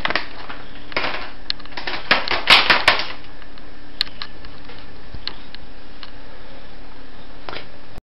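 A quick cluster of sharp clicks and taps about two to three seconds in, with a few scattered single clicks before and after, over a steady hiss.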